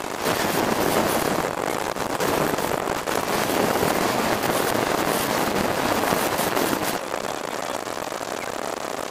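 Street go-kart engine and wind on the microphone as the kart drives in city traffic: a dense, rough noise that rises just after the start and eases off about seven seconds in.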